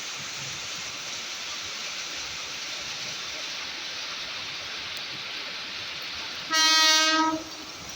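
Steady hiss of rain, then about six and a half seconds in a single short blast of an electric commuter train's horn, one steady tone lasting under a second, from an arriving JR 205 series train.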